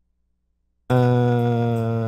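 Near silence, then about a second in a man's voice starts one long, steady low note, a held hum or chanted drone.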